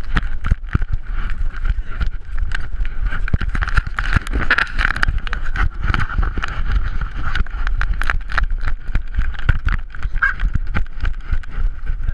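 Handling noise on a GoPro camera strapped to a puppy's harness on a cardboard mount: dense, irregular clicks, knocks and rubbing as the dog moves and its fur and a person's hands brush against the camera.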